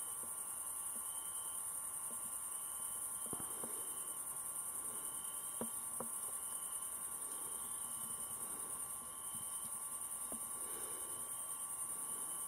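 Crickets chirring in a steady, high-pitched chorus, with a fainter chirp repeating a little more than once a second and a few faint clicks.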